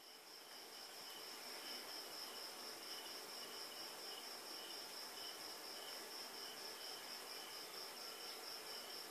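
Crickets chirping steadily in a fast, even pulse of about four chirps a second, with a second, lower cricket joining in on and off.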